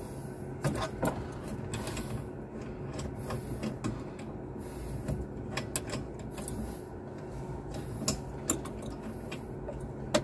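Scattered metallic clicks and taps of an adjustable wrench loosening a line fitting at the head of an aircraft crew oxygen cylinder, over a steady low hum.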